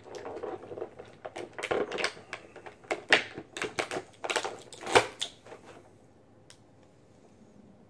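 Clear plastic packaging crackling and snapping as an action figure is worked and popped out of its tray: a quick, uneven run of crinkles and clicks with a few sharper snaps, lasting about five seconds.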